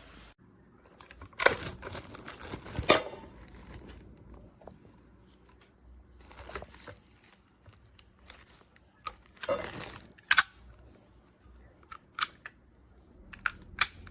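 Scattered sharp clicks and knocks of objects being handled, the two loudest about a second and a half apart near the start, then lighter clicks spread through the rest.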